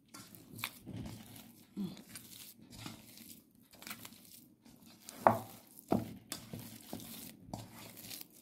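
A hand kneading soft bread dough in a stainless steel bowl, working in a little soybean oil, with irregular squishing and rustling. Two sharp knocks about five and six seconds in are the loudest sounds.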